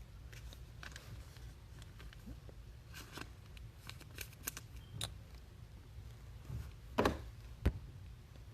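Trading cards and plastic card sleeves being handled: scattered soft rustles and small clicks, with two sharper knocks about seven seconds in.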